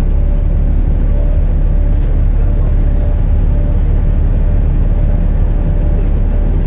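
A double-decker bus's diesel engine running, heard from inside on the upper deck as a steady low rumble. A faint high-pitched whine sounds from about a second in until nearly five seconds.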